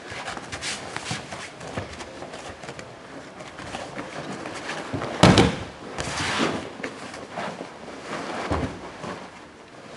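Two grapplers' cotton gis rustling and bodies shifting on the mats, with several light knocks and one loud thud about five seconds in as a body drops onto the mat.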